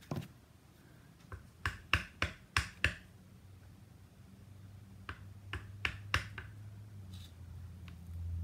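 Clear acrylic stamp block and ink pad handled on a hard craft mat: a quick run of about six sharp taps near two seconds in, then four more around five to six seconds in, over a faint low hum.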